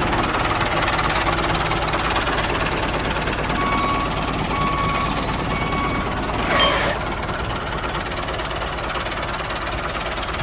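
Small engine running steadily with a knocking chug. Three short beeps sound about a second apart a little before the middle, and there is a brief louder burst soon after.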